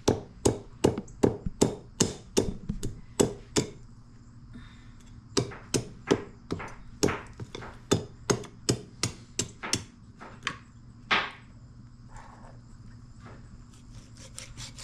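A knife chopping a tough local rooster into pieces: quick, even strikes about four a second, in two runs with a short pause between them, then one more strike about eleven seconds in.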